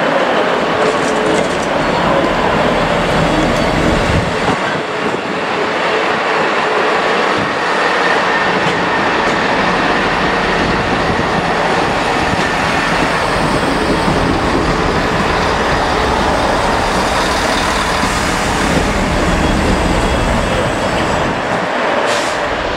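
A train moving, a steady loud rumble with faint whining tones over it.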